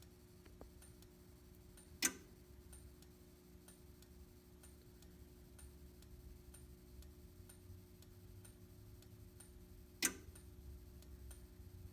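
Two sharp clicks, about 2 seconds and 10 seconds in, from a Simplex 4010 fire alarm control panel going through a system reset. Under them run faint ticking about once a second and a steady low hum.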